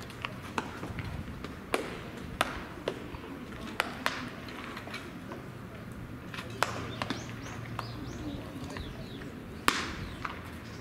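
Baseballs smacking into leather gloves during a game of catch: about five sharp pops a second or more apart, the loudest near the end, over a low murmur of distant voices.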